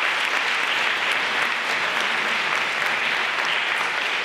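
Audience applauding, a steady spread of clapping from many hands.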